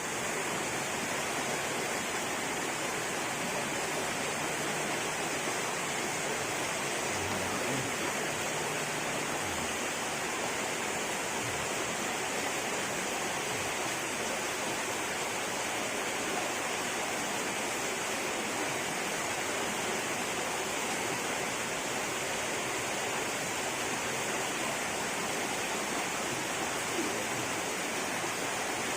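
Steady rush of flowing water, like a stream pouring over a small fall, with an even, unbroken hiss.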